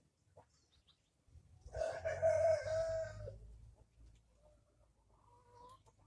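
An animal's call: one long pitched call of about a second and a half, dropping in pitch at the end, over a low rumble.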